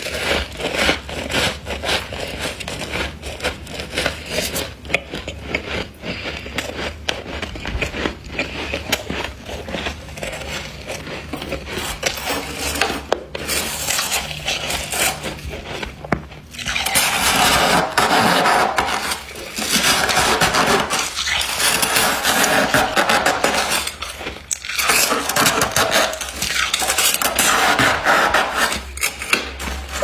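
Thick, fluffy humidifier-grown freezer frost being crushed and sifted under a gloved hand, with dense small crunches and crackles. About halfway through it changes to louder scraping strokes through the frost, four or five of them, each lasting one to three seconds.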